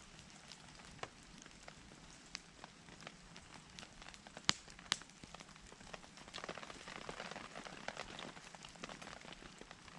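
Wood campfire crackling, with scattered sharp pops. Two loud pops come close together about halfway through, and the crackle grows denser for a couple of seconds after.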